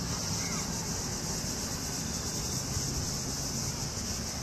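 Outdoor background: a steady high hiss over a low rumble, with a faint short chirp about half a second in.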